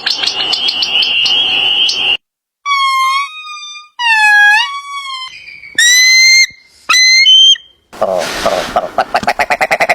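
A string of short animal calls cut one after another: a trill, then several clear pitched calls that slide downward, two loud short tones, and a fast pulsing, rattling call near the end.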